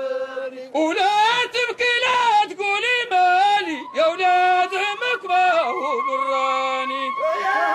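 Amazigh wedding farewell song: a man sings long, wavering held notes, with a few sharp knocks in the first half. Over the last couple of seconds a high, trilling note is held above the lower voices.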